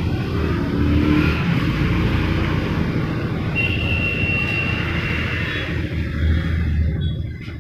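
A motor running steadily with a low rumble and hiss, a thin high whine joining in for about two seconds midway.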